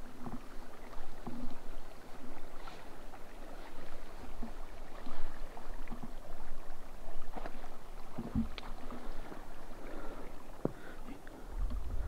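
Footsteps and rustling through dry leaves and undergrowth: irregular crunches and clicks with a few dull knocks, the loudest about 8 seconds in.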